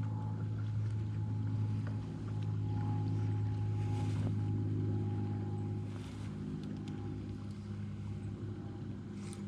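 A steady low mechanical hum with several even tones and a faint, thin, higher whine above it, holding level throughout.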